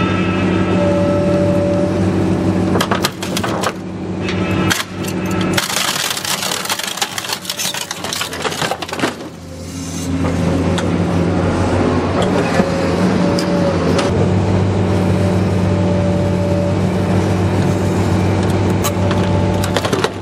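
Car dismantling machine running with a steady engine hum and a wavering hydraulic whine while its claw rips a car's boot lid away. Sharp metal cracks run through it, with a dense stretch of crunching and tearing from about six to ten seconds in.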